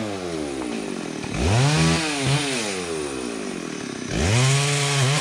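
Chainsaw engine revved twice, each time climbing quickly to high speed, holding about a second, then slowly winding back down toward idle.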